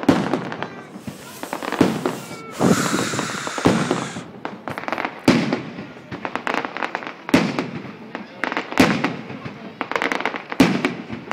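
Aerial firework shells bursting overhead: a string of about eight booms, one every second or two, each trailing off in echo, with a spell of hissing crackle a few seconds in.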